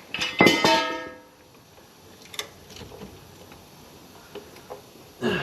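A single sharp metallic clang about half a second in, ringing with several clear tones that fade over about half a second, followed by a few faint clicks and knocks of metal on metal.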